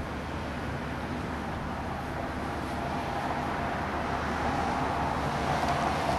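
Steady outdoor hum of distant traffic, growing gradually louder toward the end as a vehicle's hum rises above it.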